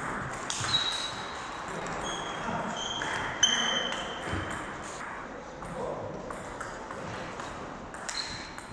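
Table tennis rally: the ball clicking back and forth off the bats and the table, with the sharpest hit about three and a half seconds in. Short high squeaks from the players' shoes on the wooden floor come in several times.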